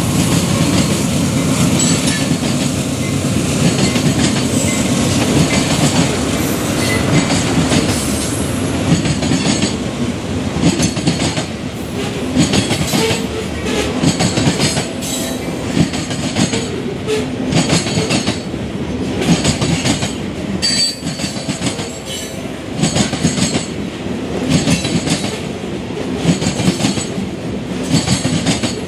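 A CSX freight train's cars rolling past, steel wheels clattering over the rails in a continuous uneven run of clicks.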